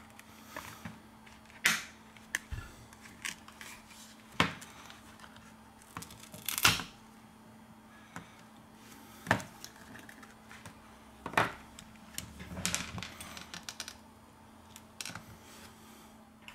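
Scattered sharp clicks and snaps of hand tools and fingers working on an LG K50 smartphone's plastic housing and internal parts during disassembly, a loud click every two to three seconds with lighter ticks between, over a faint steady hum.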